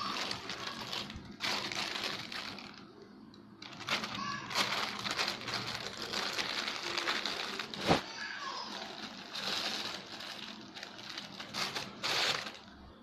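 Crinkling and rustling with scattered clicks as something is handled, and one sharp knock about eight seconds in.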